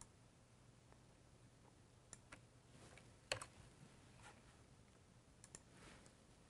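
Near silence with a faint low hum and a few scattered faint clicks of a computer mouse; the loudest click comes about three seconds in.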